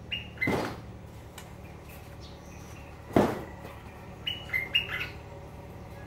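Caged bulbuls (merbah) giving short, clipped chirps in small clusters, near the start and again about four to five seconds in. Two louder short thumps, about half a second and three seconds in, stand out over the chirps.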